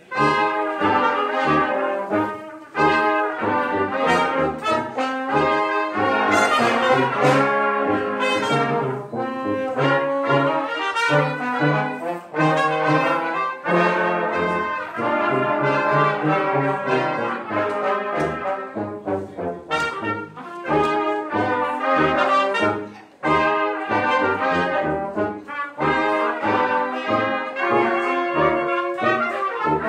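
Live brass ensemble of trumpets, French horn, trombone and tuba playing together, with many short, detached notes over short tuba bass notes. The music breaks off briefly about three seconds in and again a little after twenty seconds.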